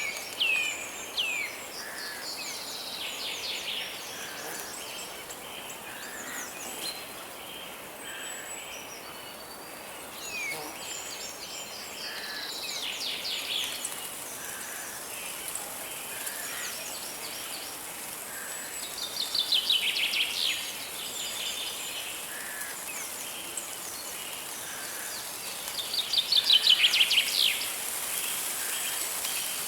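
Forest birdsong over a steady rush of river water. A bird sings fast trilled phrases every several seconds, the loudest about two-thirds of the way in and near the end, while softer single chirps repeat every couple of seconds.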